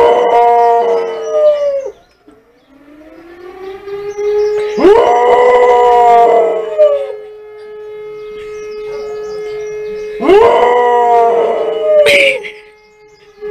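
A large black dog howling: three long howls, each rising sharply and then sliding down. Beneath them a distant siren rises slowly, holds a steady tone and falls away near the end, and the dog howls along with it.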